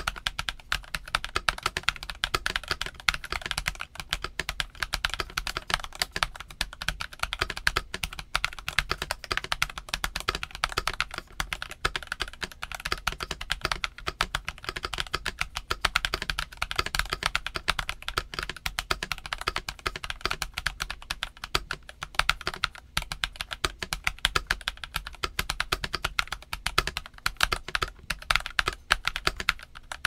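Fast, continuous typing on a Cidoo ABM084 mechanical keyboard fitted with Cidoo Matte switches and DS PBT Cherry keycaps: a dense, steady stream of keystrokes with no pauses.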